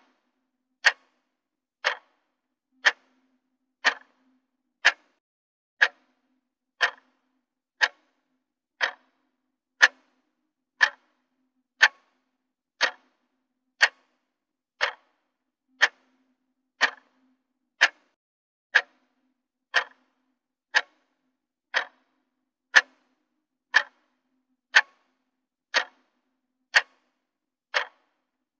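Countdown timer's clock-tick sound effect: one sharp, even tick every second.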